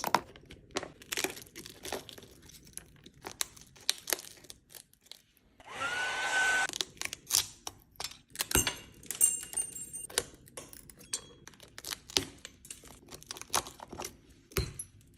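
Scattered sharp taps, clicks and small crunches of a metal tool striking and breaking up an iPhone 13 Pro Max's cracked back glass, with a hiss lasting about a second, about six seconds in.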